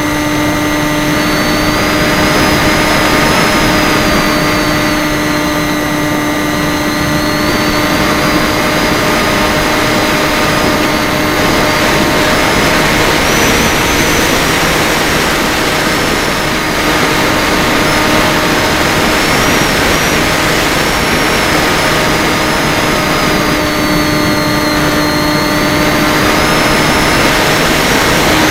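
FPV drone's electric motors and propellers whining steadily, with a higher tone wavering up and down through the flight.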